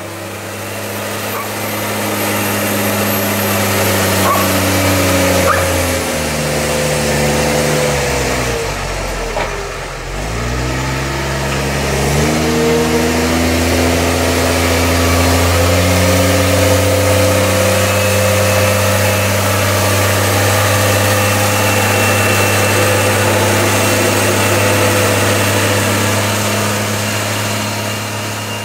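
New Holland tractor's diesel engine working on a silage clamp, pushing and packing chopped maize. The revs fall away about seven to ten seconds in, climb back up, then hold steady.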